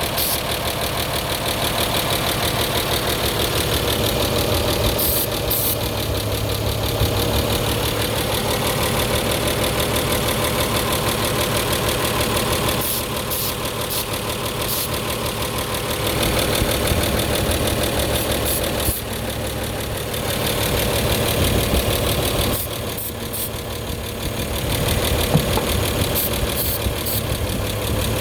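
1930 Chevrolet's inline six idling steadily while carb cleaner is sprayed around the intake connections in a hunt for a vacuum leak. The idle holds without any clear rise in revs.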